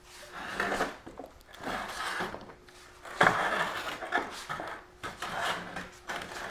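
Wooden outboard engine stand with no wheels being shoved across a concrete floor, its legs scraping and knocking in a series of uneven pushes, the loudest about three seconds in.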